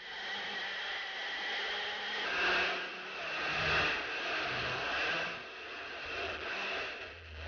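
A 250cc go-kart engine running at speed on a kart with an onboard camera. Its note swells and eases several times, over a rushing noise.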